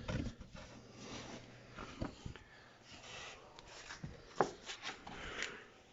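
Faint handling noise: soft rubbing and rustling with a few scattered light knocks and ticks, the sharpest about four and a half seconds in.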